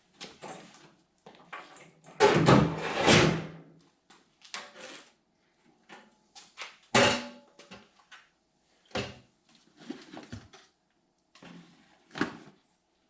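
Sheet-metal heating duct pipe being handled and fitted, making a string of clanks, knocks and rattles. The loudest is a long rattling clatter about two seconds in, and a sharp clank comes about seven seconds in.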